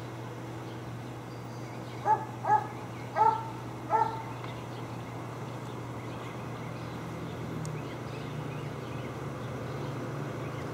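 Four dog barks in quick succession, about half a second apart, over a steady low hum that grows slightly louder near the end.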